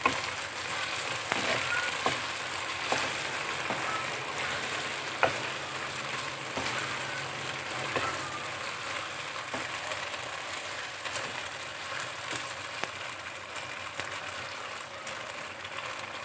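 Chicken slices sizzling in oil in a hot pan on a high flame: a steady frying hiss, with scattered clicks and scrapes of a spatula stirring the pan.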